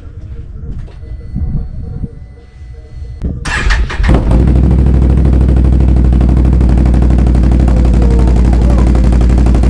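Can-Am Outlander 1000 ATV's Rotax V-twin engine starting through a freshly fitted RJWC aftermarket exhaust with no silencer insert. It fires about three and a half seconds in and settles into a loud, steady idle.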